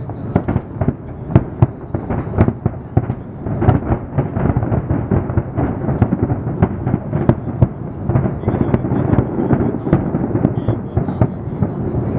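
Fireworks display: many sharp bangs in quick succession over a continuous rumble. In the second half the separate bangs thin out into a denser, steadier rumble.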